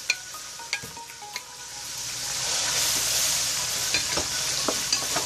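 Chopped tomatoes sizzling in hot oil in a nonstick pot. The sizzle swells about two seconds in, with a few sharp taps and scrapes of a wooden spoon as they are scraped in and stirred.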